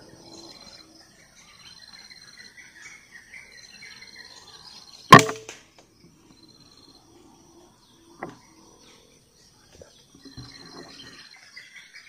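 A single shot from a PCP air rifle about five seconds in, one sharp crack, followed about three seconds later by a softer click. Insects chirp steadily in repeated pulses, with some bird chirps.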